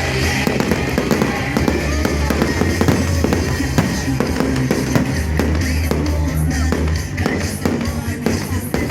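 Fireworks going off in many quick bangs and crackles, over loud music with a steady heavy bass.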